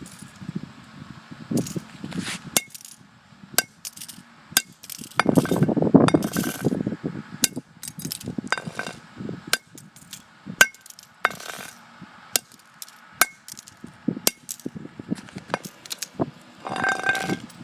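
A flip phone being smashed: a string of sharp hits, irregular but roughly one a second, each with a short ringing clink, and a longer rough clatter about five seconds in.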